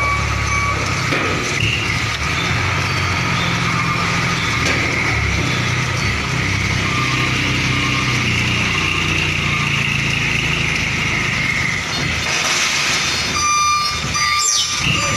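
Hino 500 truck's diesel engine running at low speed while manoeuvring, a steady low drone. Near the end a reversing beeper starts up.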